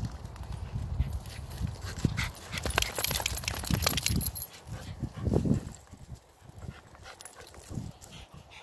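Dogs playing at the edge of a pond, with a dog vocalising. A run of sharp crackles comes about two to four seconds in, and a louder dog sound about five seconds in, over a low rumble of wind on the microphone in the first half.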